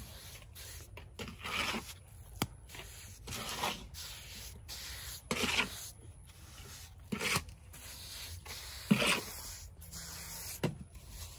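A bare hand rubbing and smoothing the damp earth surface of a clay oven dome: a rasping swish about every two seconds, with a few sharp clicks in between.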